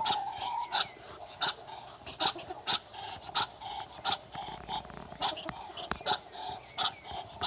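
Muscovy duck hissing: a run of short, breathy puffs, about one and a half to two a second.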